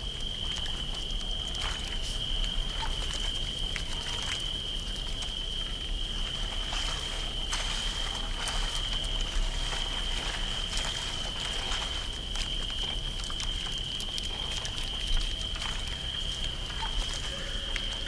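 Layered night river and swamp soundscape: a steady high insect trill with a low rumble beneath, and scattered drips, crackles and soft creaks.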